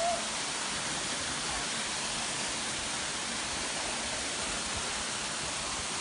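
Waterfall pouring into a rock pool: a steady, even rushing hiss of falling water. A brief short tone sounds right at the start.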